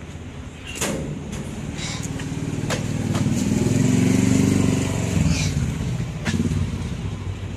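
Small motorcycle engine running close by, growing louder to a peak about halfway through and then easing off, with a few sharp knocks along the way.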